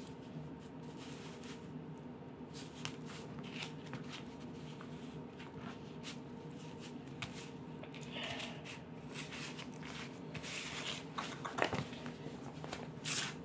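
Paper and cardboard rustling with faint taps as hands handle and smooth them on a cutting mat, over a steady low hum. Louder paper rustles come near the end as a sheet of patterned paper is picked up.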